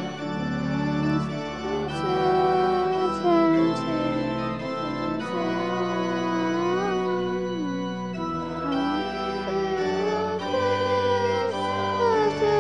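Church organ playing sustained chords under a moving melody line.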